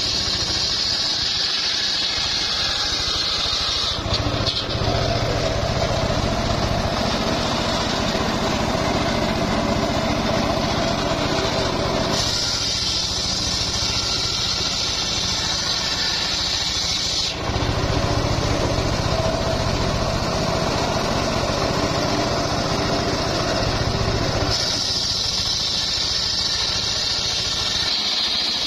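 Home-built engine-driven circular saw bench running while ripping a timber beam lengthwise into rafters. The sound switches back and forth four times between a high-pitched whine from the blade and a fuller, lower engine hum.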